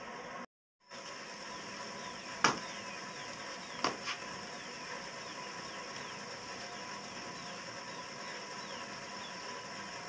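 Steady mechanical hum, broken by two sharp clicks about a second and a half apart, the first the loudest; faint short falling chirps repeat behind it.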